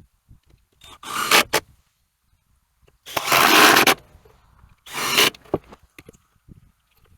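Wooden boards scraping and rubbing against each other in three bursts, the longest and loudest about a second long in the middle, with light knocks of wood between.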